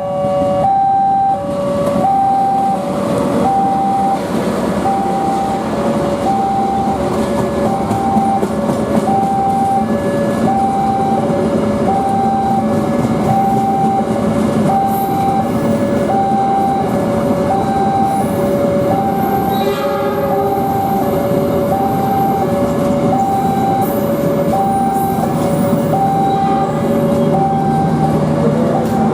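Railway level-crossing warning alarm sounding two alternating tones, high then low, in a steady cycle about every second and a half, over the rumble of a train passing the crossing.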